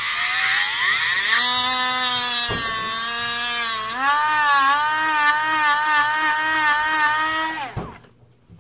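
Dremel rotary tool with a sanding drum bit, spinning up with a rising whine and then running steadily as it sands a clipped metal screw end flush on an action figure's shoulder peg. The pitch wavers as the bit is pressed against the work, and the motor winds down near the end.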